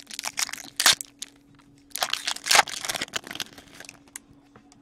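Clear plastic card sleeve crinkling and rustling as trading cards are handled, in two spells of rustling with a sharp click about a second in.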